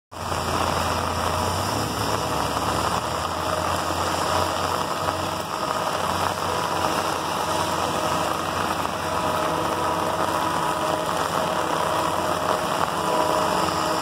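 Steady hiss of rain over a low engine rumble, with faint steady tones coming in after about nine seconds.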